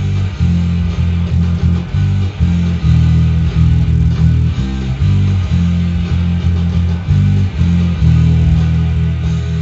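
Electric bass guitar playing a driving punk-rock bassline of quickly repeated low notes, over a full-band punk-rock recording.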